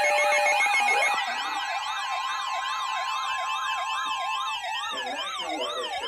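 A pulsing alarm tone cuts off about a second in. After that, several sirens sweep quickly up and down at once, about three sweeps a second, over a steady tone that drops away near the end.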